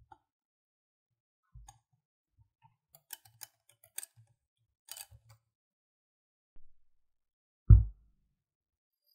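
Kitchen handling sounds: a scatter of light clicks and taps, then one dull thump near the end, much the loudest.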